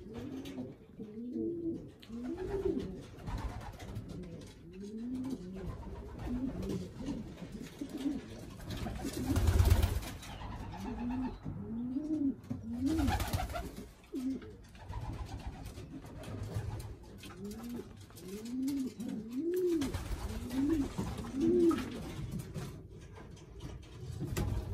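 Racing pigeons cooing over and over, each coo a low rise-and-fall call. A louder rustle breaks in about ten seconds in, and a smaller one a few seconds later.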